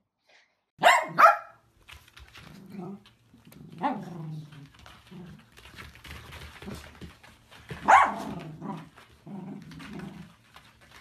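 Dachshunds barking: two sharp barks about a second in, then further single barks around four and eight seconds, with low growling in between as several small dogs play-fight over a toy.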